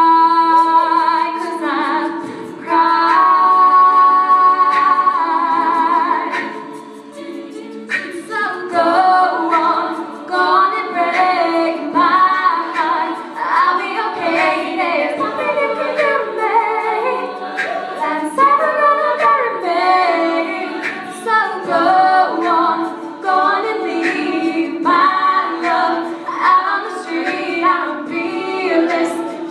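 All-female a cappella group singing in harmony without words the recogniser could catch: a sustained chord for the first several seconds, then, after a short dip, rhythmic backing-vocal parts moving underneath.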